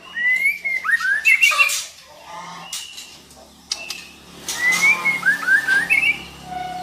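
Female white-rumped shama calling: two short phrases of sliding whistles mixed with harsh, chattering notes, a few seconds apart.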